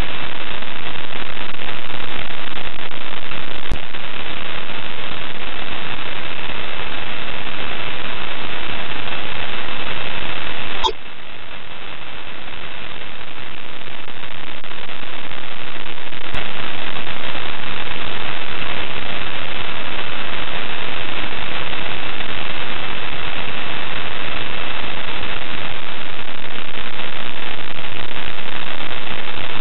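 Loud, steady radio static hiss on the ISS live stream's audio feed, with a thin steady whistle running through it. About eleven seconds in, a click cuts the hiss down, and it then swells slowly back to full level.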